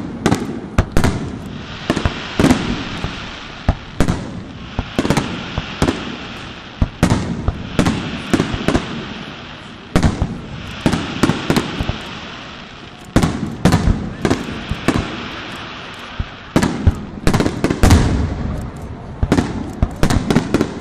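Aerial firework shells bursting overhead: sharp bangs in quick, irregular volleys, several a second, with short lulls between and a steady hiss under them.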